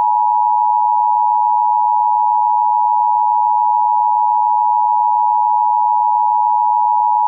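Emergency Alert System attention signal: a loud, steady two-pitch tone held without a break, sounded to announce an emergency broadcast.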